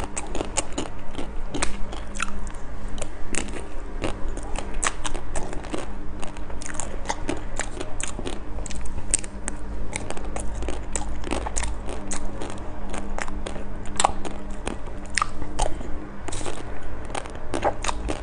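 Crunching bites and chewing through the hard chocolate shell of ice cream bars, close to a clip-on microphone: many sharp crackles throughout, over a faint steady hum.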